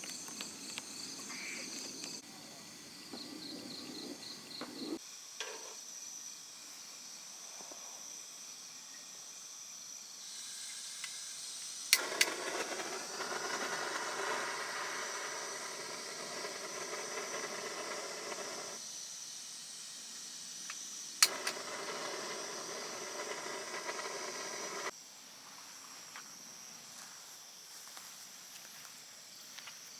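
Crickets and other insects chirping, in pulsed and steady high trills, over a changing outdoor background that jumps abruptly several times, with a sharp click at two of the jumps and a louder hiss of noise through the middle stretch.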